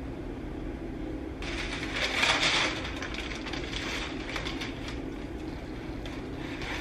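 Parchment paper crinkling and rustling as it is handled and peeled off a raw tortilla, starting about a second and a half in and loudest just after two seconds, over a low steady hum.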